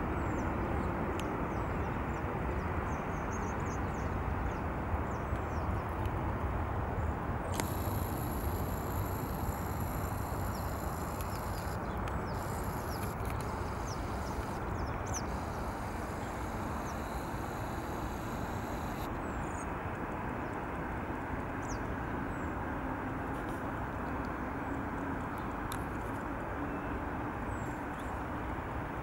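Steady distant rumble of airport traffic. A high, steady whine comes in about eight seconds in and cuts off about eleven seconds later, and there are occasional faint chirps.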